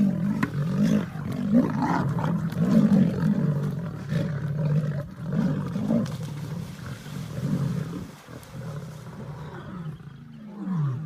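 Lions growling and roaring, a long run of deep, rough calls that eases off after about eight seconds.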